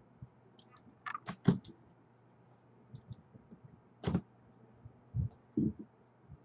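Scattered light clicks and taps from trading cards and their plastic holders being handled on a table, a few at a time with short gaps between.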